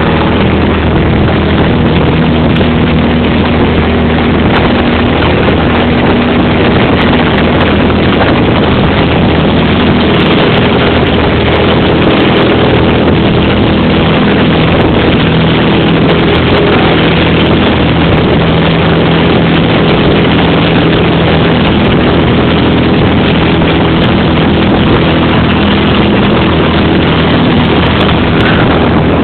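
Cessna 172's piston engine and propeller at takeoff power, heard from inside the cabin as a loud, steady drone.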